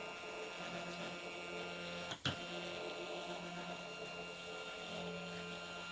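Stepper motors of a 3D-printed robot arm moving its forearm joints: a steady whine of several tones that swells and eases as the joints move, with a single sharp click about two seconds in.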